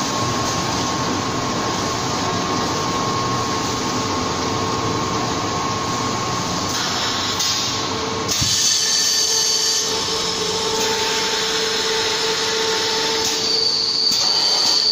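Paper-pulp egg tray forming machine running: a dense steady mechanical noise with a steady hum. About eight seconds in the low rumble drops away and a brighter hiss with high whistling tones takes over.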